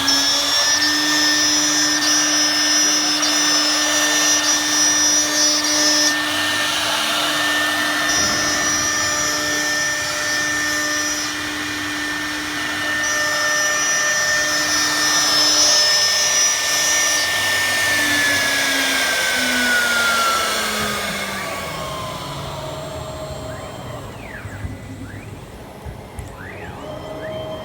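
Spindle of a 1325 CNC wood router running with a steady high whine, with a higher whistle that comes and goes every few seconds. About eighteen seconds in, the whine falls steadily in pitch as the spindle spins down.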